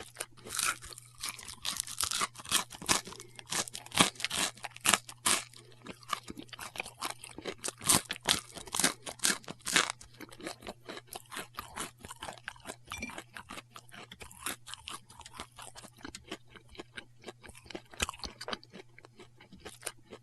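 A man chewing food: quick, irregular crunches and mouth clicks, thickest in the first half and thinning out after about ten seconds, over a steady low hum.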